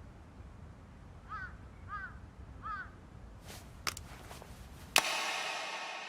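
A crow cawing three times, each call roughly two-thirds of a second after the last. A few faint clicks follow, then a sharp strike near the end that rings on and fades away.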